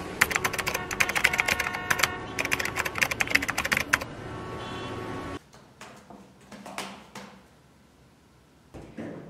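Typewriter sound effect: two quick runs of keystrokes, then a ringing tone that cuts off suddenly about five seconds in, leaving only faint room sounds.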